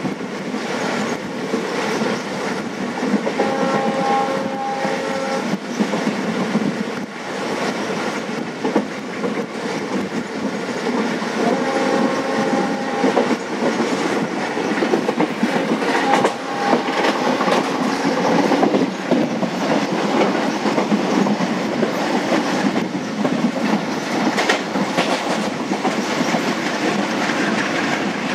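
Moving passenger express train heard from the side of a coach: wheels clattering over the rail joints over a steady rumble. A train horn sounds three times from up ahead, first for about two seconds around three seconds in, then a shorter blast around twelve seconds and a brief one around sixteen seconds.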